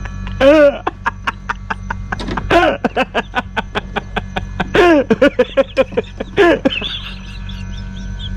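Edited-in music with a quick, steady beat over sustained tones, with four loud pitched calls that bend downward. The sound cuts off abruptly at the end.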